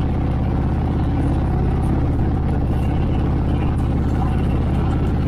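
Motorcycle engines running steadily at a constant cruising speed during a group ride.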